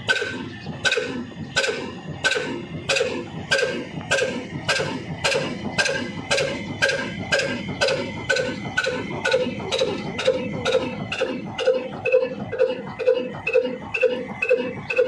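Large single-cylinder horizontal diesel engine of the Ruston 'old black engine' type, with a heavy flywheel, running with slow, heavy firing beats. The beats quicken steadily from a little over one a second to nearly three a second as the engine gathers speed after starting.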